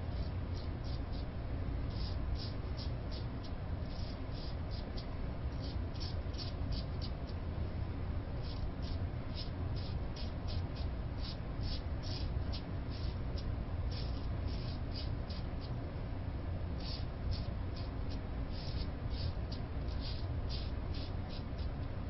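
Single-edge razor with a resharpened Feather Seikan carbon blade scraping through lathered stubble in quick short strokes, a few scratchy strokes a second in runs, with a pause about two-thirds of the way through.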